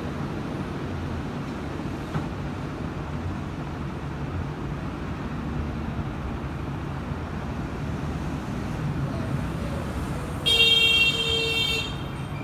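Steady low rumble of road traffic. About ten and a half seconds in, a car horn sounds once at a steady pitch for about a second and a half.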